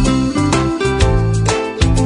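Background music with plucked guitar and a regular beat.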